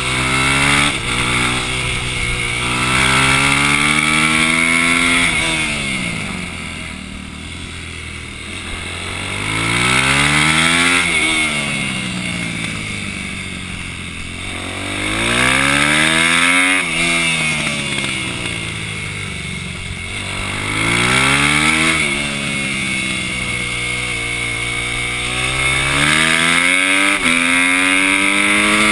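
Supermoto motorcycle engine heard from on board, revving up through the gears with its pitch climbing, then dropping away as it slows for the corners, over and over. Near the end the rising pitch breaks briefly at a gear change.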